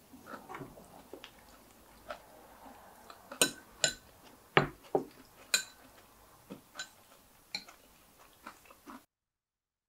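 Tableware clinking: utensils knocking against bowls and dishes in a string of separate clicks, several of them sharper, ringing clinks around the middle. The sound cuts off suddenly near the end.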